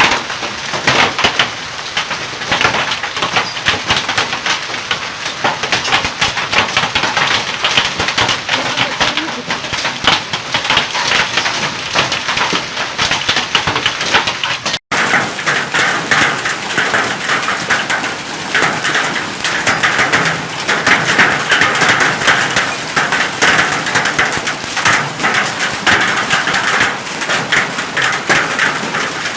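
Hailstones pelting down in a heavy storm: a dense, continuous clatter of countless impacts. A brief dropout about fifteen seconds in, after which the clatter is fuller in the midrange.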